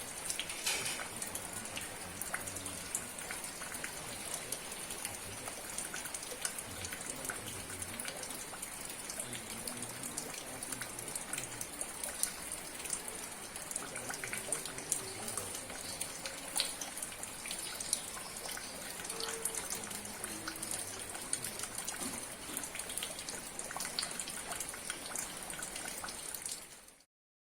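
Steady rain falling, with a constant hiss and many separate drops ticking irregularly. It cuts off suddenly near the end.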